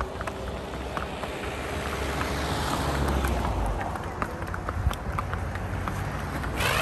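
Pony hooves clip-clopping on a brick path in irregular sharp clicks, with road traffic alongside and a car passing about halfway through.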